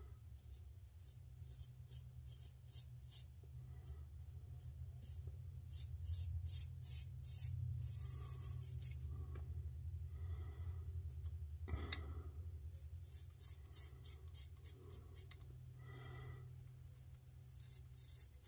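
Kikuboshi Feon straight razor (Japanese-made, Swedish steel) scraping stubble through lather on the neck and chin in runs of short, quick strokes, each a faint crackling scratch of whiskers being cut. A low steady hum sits underneath.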